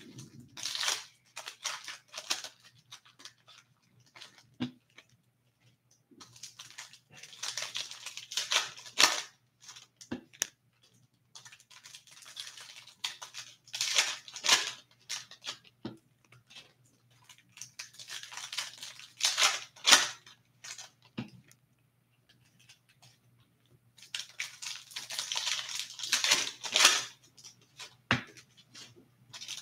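Foil hockey-card packs being torn open and crinkled by hand, with cards sliding and tapping as they are pulled out and stacked. This comes in about five spells of crinkling a few seconds apart, with quiet in between.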